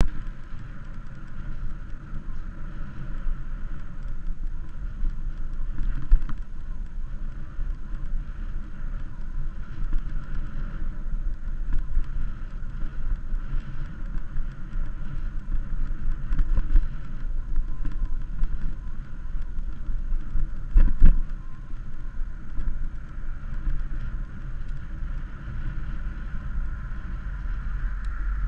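Wind buffeting and road rumble on a camera riding on a moving bicycle, a steady noisy rush with small rattles, and a louder knock about three-quarters of the way through as the bike jolts.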